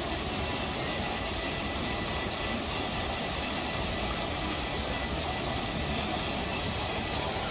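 Plaza fountain jets spraying and splashing into the basin: a steady rushing hiss of water.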